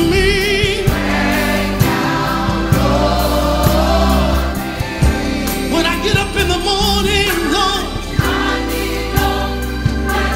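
Gospel song: voices sing long, wavering notes with a choir over a band, with a steady drum beat.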